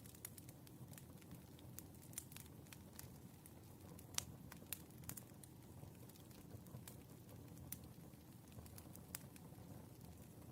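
Wood fire crackling: a low steady rumble of burning logs with irregular sharp pops, one louder pop about four seconds in.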